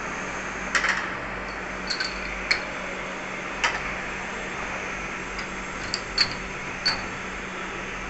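Light metallic clicks and taps at uneven intervals, some with a short high ring, over a steady low hum.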